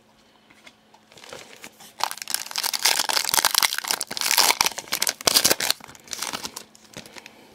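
Foil wrapper of a Panini Contenders 2013-14 hockey card pack being opened and crumpled in the hand: a dense, loud crinkling that starts about a second in and dies away near the end.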